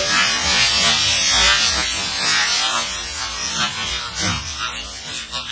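Water spray and chunks of broken ice falling back into a puddle just after an underwater firecracker blast, a dense spatter of small splashes and ice hits under a hiss that thins out and fades toward the end.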